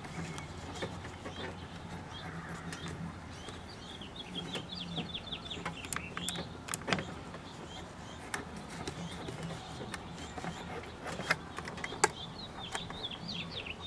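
A small electric motor whirring in short runs, among sharp clicks and taps of small parts. A quick run of high chirps comes about four seconds in.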